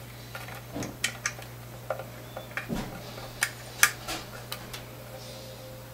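Irregular small metal clicks and taps as a replacement output jack is fitted into an electric guitar's jack socket and its nut tightened down.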